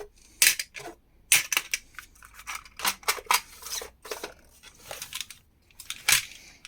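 Small metal hardware such as screws and pins being rummaged through and handled in a box, giving irregular clicks and clinks.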